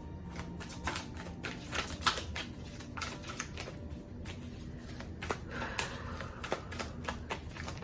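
Tarot cards being shuffled and handled by hand: a run of irregular crisp card snaps and flicks, over a faint low hum.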